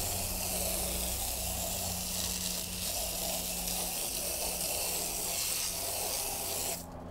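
Water spray rinsing a muddy truck tire and wheel: a steady hiss of water that cuts off suddenly near the end.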